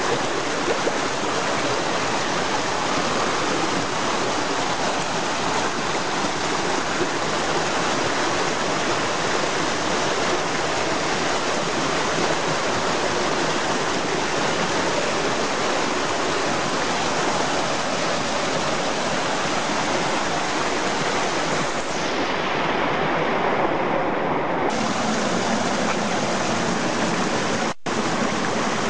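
Mountain stream rushing over rocks and small cascades: a steady, even rush of water, broken by a momentary drop-out near the end.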